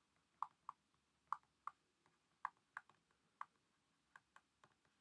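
Stylus tapping and clicking on a pen tablet during handwriting: a string of faint, irregular clicks, roughly two a second.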